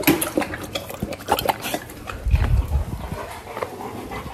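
Cane Corso dogs moving about close by: a string of short clicks and scuffles, with a brief low rumble a little past two seconds in.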